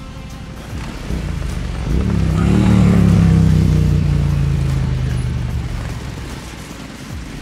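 BMW adventure motorcycle riding past on a dirt road: the engine grows louder to a peak about three seconds in, then fades as it moves away.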